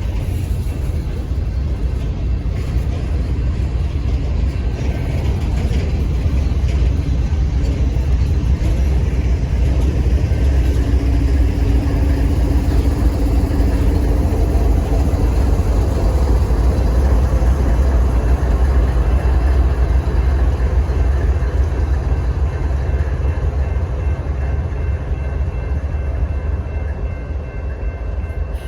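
Freight train running past, a steady deep rumble of diesel locomotives and rolling cars that grows louder to a peak about halfway through and then eases off.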